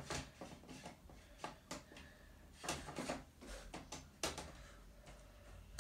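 Faint, irregular clicks and light knocks of handling noise over a low steady hum.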